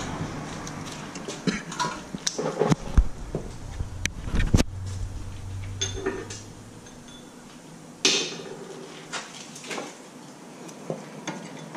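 Scattered metallic clinks and knocks of tools and brake caliper hardware being handled, with a short hiss about eight seconds in.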